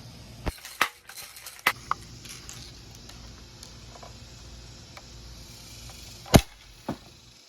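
A BB gun fired at a beer can: a few light sharp clicks in the first two seconds, then one loud crack about six and a half seconds in, followed by a smaller snap half a second later.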